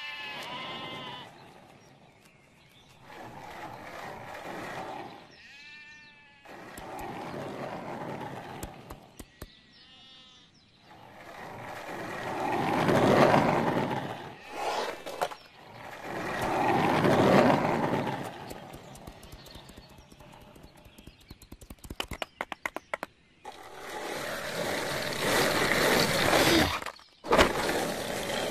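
Cartoon soundtrack with sheep bleating twice, followed by two loud swelling noise effects, a quick run of clicks, and a longer noisy stretch near the end.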